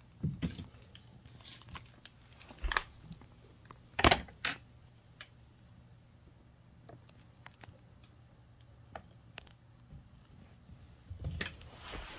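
A kitten playing on a hardwood floor and clambering on an office chair's base: scattered taps, scuffs and knocks, the loudest a pair of knocks about four seconds in and a flurry near the end.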